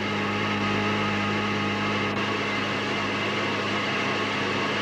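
Steady cockpit noise of a Tu-22 bomber: an even drone and hiss with a constant low hum, unchanging throughout.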